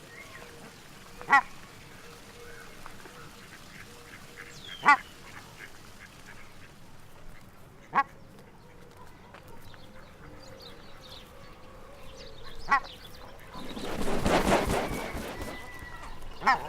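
Duck quacking: five single short quacks spaced a few seconds apart, with a rush of noise lasting about two seconds near the end.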